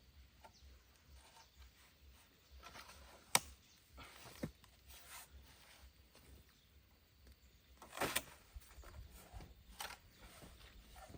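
A few scattered sharp clicks and knocks against a quiet background: a loud one about three seconds in, a smaller one a second later, and a cluster around eight seconds in.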